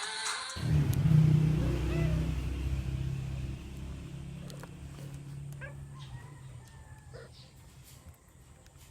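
A motor vehicle's engine rumbling past, loudest about a second in and then fading away, with a few faint bird chirps in the second half.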